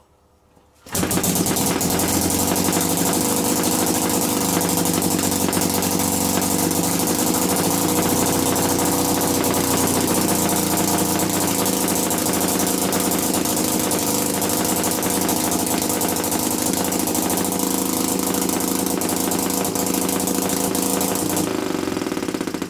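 Scratch-built single-cylinder two-stroke opposed-piston model engine (22 mm bore, 24 mm stroke) catching about a second in and running steadily for some twenty seconds, then dying away near the end.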